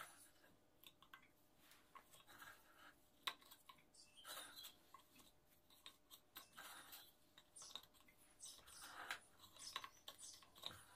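Faint, scattered clicks and soft scrapes of round tea biscuits being set down one by one over banana slices in a glass baking dish, with one sharper click about three seconds in.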